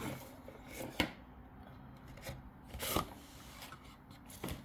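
Cardboard and packaging of a Pokémon Elite Trainer Box being handled: rubbing and sliding, with a couple of sharp taps and a brief rustle.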